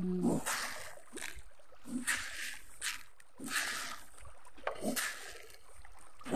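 Pond water splashing in short, repeated bursts, about one a second, as fish are fed at the surface.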